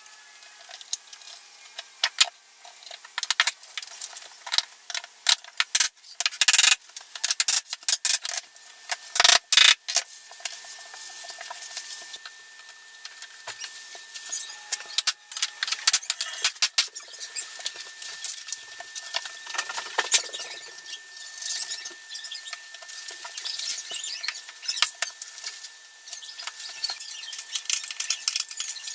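Vinyl flooring planks being handled and fitted on the floor: irregular sharp clicks, knocks, scraping and squeaks, with a faint steady high whine underneath from about a third of the way in.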